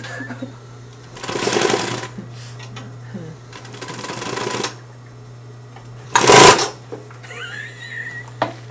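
Consew 225 industrial walking-foot sewing machine stitching in short bursts: two runs of rapid stitching about a second long, then a briefer, much louder burst about six seconds in. A steady low hum runs underneath.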